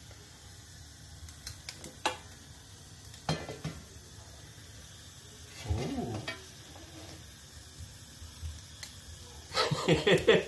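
A hand-held metal string hopper press being handled and squeezed while dough is pressed onto plastic mats: scattered sharp clicks and knocks of metal and plastic. A couple of short squeaks come around the middle, and a denser burst of clattering and squeaking comes near the end.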